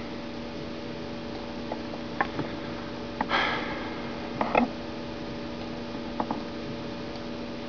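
A steady electrical hum with a few faint, scattered clicks, and one short sniff about three seconds in.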